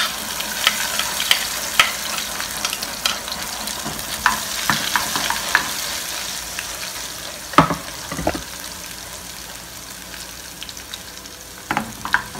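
Freshly added chopped garlic sizzling in hot oil with cumin seeds in a steel frying pan. The sizzle is strongest at first and slowly dies down, while a spoon stirs and clicks against the pan, with a couple of sharper knocks a little past halfway.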